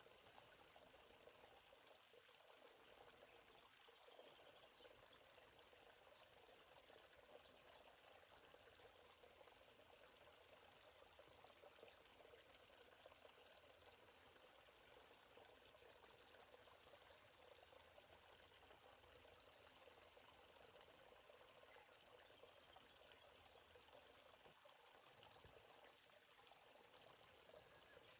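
Steady high-pitched chorus of insects, with the soft even murmur of a forest stream beneath it.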